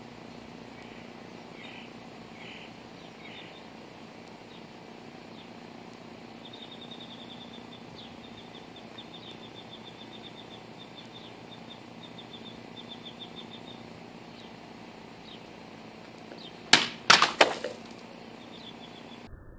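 Cold Steel Emperor katana making a quick double cut through plastic water bottles near the end: a cluster of loud, sharp swishes and hits within about a second. Before it, a small bird chirps and trills in the background.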